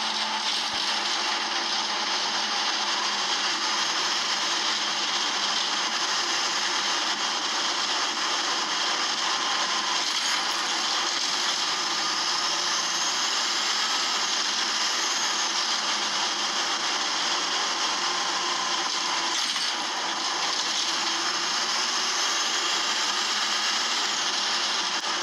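Optare Solo bus engine heard from inside the saloon, running with a steady noisy drone, a sign of the engine fault. A high whine rises and falls twice.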